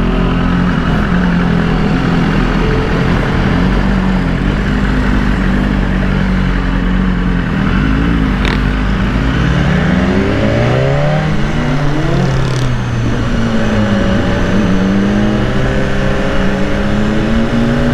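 Sport motorcycle engine running steadily while riding, with wind rushing over the bike-mounted microphone. About ten seconds in, the engine pitch rises and falls a few times, then settles again.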